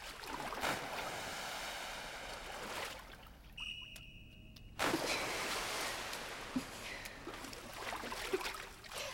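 Swimming-pool water splashing and sloshing, growing into a louder rush of splashing about five seconds in. A short steady high tone sounds in the quieter stretch just before it.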